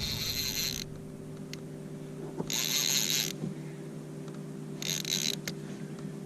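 Fishing reel being cranked in three short bursts, its gears whirring as line is retrieved on a large halibut.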